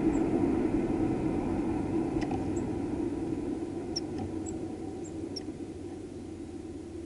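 A low rumble that fades away steadily, with several short, faint, high chirps from tits scattered through its middle.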